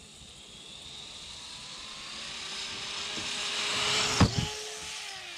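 Arrma Typhon V4 6S brushless RC buggy running flat out toward the ramp, its motor and drivetrain whine growing steadily louder. About four seconds in there is a sharp double thump as it hits the ramp, and then the whine drops in pitch as the car launches away.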